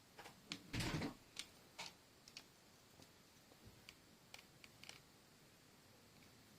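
Faint scattered clicks and taps of small plastic toy parts being handled, with one louder knock and rustle about a second in; the clicks die away after about five seconds.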